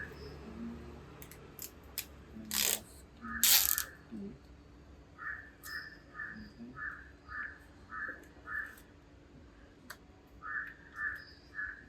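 A crow cawing in runs of short calls, about two a second, with a pause in the middle. Before the calls begin there are two brief loud noises a little under a second apart.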